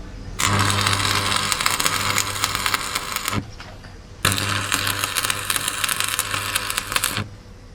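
Workshop metalwork on a steel truck rim: two harsh, crackling runs of about three seconds each, with a short pause between.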